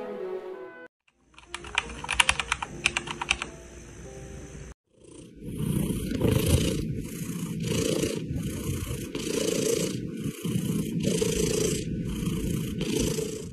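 A quick run of sharp clicks, then a cat purring close to the microphone: a steady low rumble with a breathy hiss that swells and fades about once a second.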